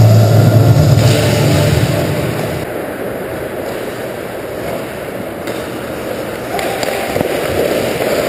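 Rock intro music fading out in the first two seconds, then the game sound of ice hockey in a rink: a steady wash of skates carving the ice and players moving around the net.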